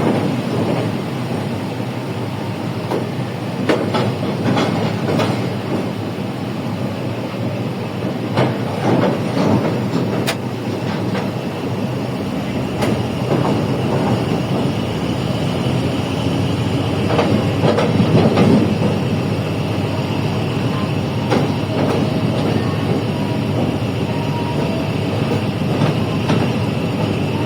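Pakistan Railways train running along the track: a steady rumble with irregular clacks and knocks of the wheels over the rails, and a faint high whine in the second half.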